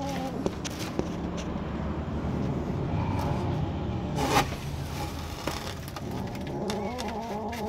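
A kitten's weak cries a few times, with the loudest near the end, over a steady low rumble; scattered clicks and rustles of boards and debris being handled, with a sharp knock about four seconds in the loudest.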